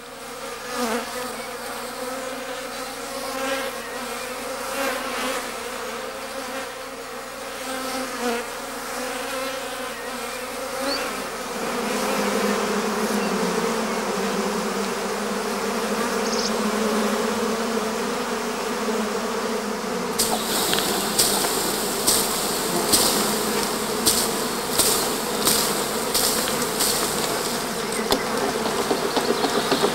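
A honeybee swarm buzzing as a steady, many-pitched hum. In the last third, a run of sharp snips from pruning shears cuts in over the buzz.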